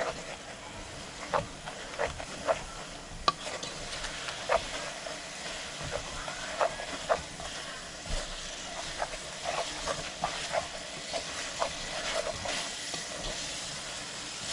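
Wooden spoon stirring food in a metal cooking pot, knocking irregularly against the pot's side and bottom, over a steady sizzle from the hot pot.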